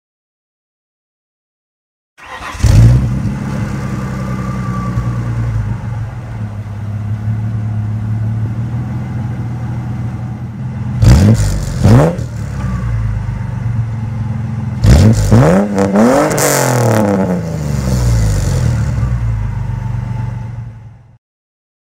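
Ford Explorer 4.0L V6 idling through a Cherry Bomb glasspack muffler, blipped twice about halfway through and revved a few more times later, with the pitch rising and falling each time. The sound cuts off near the end.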